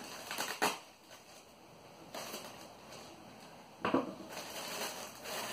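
Plastic mailer bag crinkling and rustling as it is cut open with a knife, in several short bursts, the sharpest about half a second in and about four seconds in.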